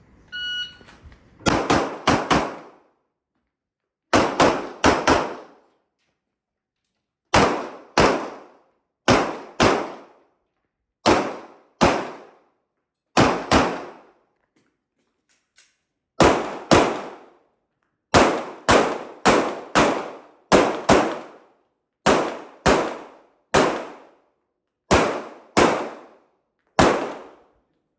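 A shot timer beeps once about half a second in, and then a Glock 17 9 mm pistol fires rapid strings of shots, mostly in quick pairs (double taps), with short pauses between the pairs as the shooter moves between targets on an IPSC stage.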